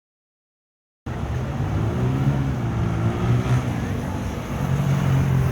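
City street traffic, with a motor vehicle's engine running close by and a steady low hum; the sound cuts in suddenly about a second in after silence.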